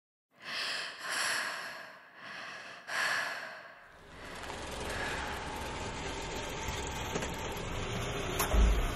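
Four loud breaths in and out in the first four seconds, followed by a steady outdoor background hiss with a low thump near the end.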